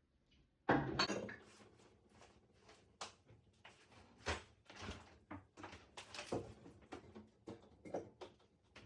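Clatter and knocks of containers and bottles being handled and set down in a refrigerator, starting with a louder clatter about a second in, then a run of light clicks and taps.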